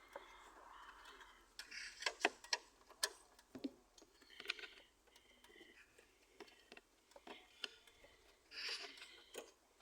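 Spanner and ratchet clinking against nuts and fittings in a car's engine bay: irregular sharp metallic clicks and taps, a quick cluster of them two to three seconds in, with some rustling between.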